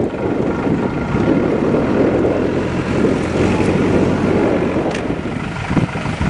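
Wind buffeting the microphone: a loud, steady rumble that rises and falls.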